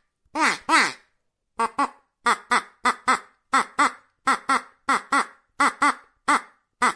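Duck quacking over and over, the quacks mostly coming in quick pairs.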